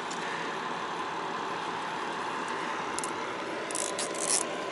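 Nylon zip tie being pulled tight, a few short ratcheting zips near the end, after a single click, over a steady engine hum.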